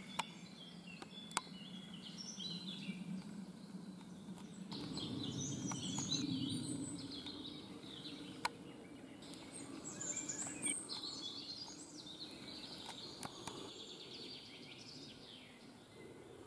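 Several woodland birds singing and chirping, short high calls overlapping, over a low rustling haze that swells about five seconds in. A few brief clicks.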